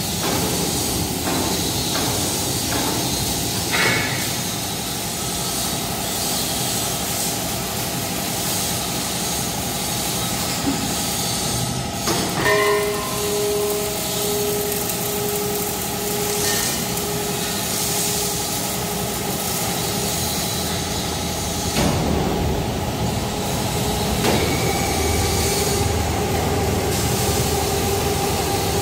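Hydraulic coil loading car of a decoiler being driven along its rails by its motor and raised by its hydraulic cylinder: a steady machine hum from the drive and hydraulic pump, with a few clunks.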